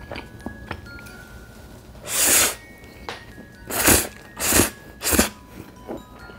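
Close-miked eating sounds: small mouth and chopstick clicks, then a loud bite about two seconds in and three more quick bites and chews of sauced fried chicken wrapped in ramen noodles.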